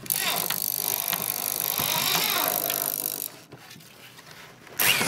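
Bosch GSB 18-2 RE drill turning a cobalt HSS bit into the remains of a broken hardened steel screw. It runs for about three seconds, stops, and starts again near the end.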